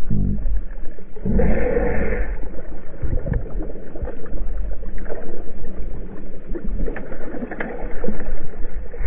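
Seawater sloshing and splashing around a camera held at the surface beside a boat's hull, with a heavy low rumble and scattered small knocks. About a second and a half in, a brief muffled pitched sound rises above the water noise.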